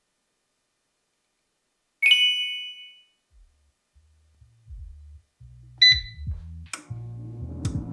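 A single bright chime rings out about two seconds in and fades over about a second. Then background music with a low bass line comes in, and near six seconds a Cosori air fryer's touch panel gives a short beep as a button is pressed.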